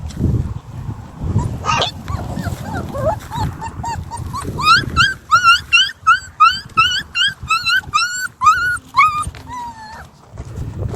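Puppy whimpering: after some low shuffling, a quick run of short, high, rising yelps at about three a second, ending in one longer falling whine.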